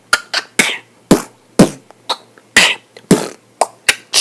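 Beatboxing: vocal percussion of sharp mouth clicks, kicks and hissing snare-like hits in a steady rhythm of about two beats a second.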